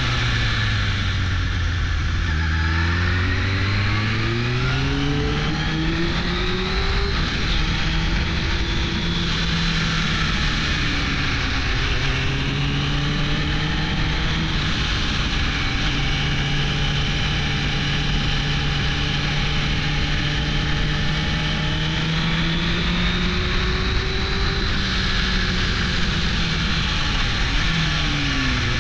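1998 Suzuki GSX-R 600 SRAD's inline-four engine on the move: the revs drop off, then climb for several seconds to a gear change about seven seconds in, hold steady through the middle, and ease off and pick up again near the end. Wind noise rushes underneath throughout.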